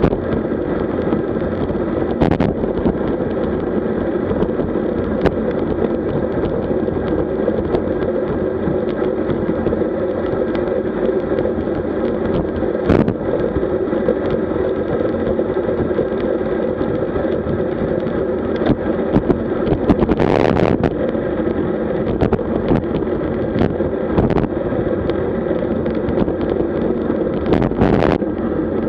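Wind rushing over the microphone of a bike-mounted action camera on a road bike at speed, mixed with tyre and road noise. A few sharp knocks break through the steady noise.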